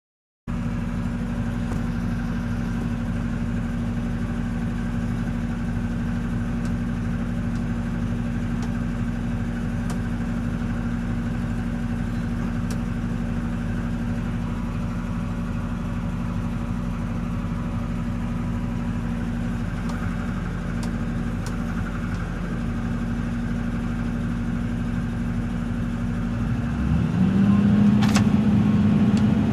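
Hitachi Zaxis 210-5G excavator's diesel engine running steadily with a low hum. Near the end it gets louder and its tone changes.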